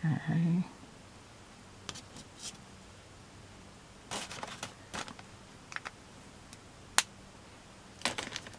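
Scattered small clicks, taps and paper rustles of craft supplies being handled on a desk, with one sharper click about seven seconds in.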